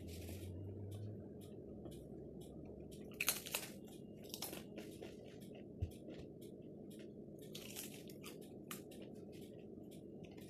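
Crispy zaatar manoushe flatbread being bitten and chewed. It gives sharp, crackly crunches, loudest in clusters a little over three seconds in and again near eight seconds.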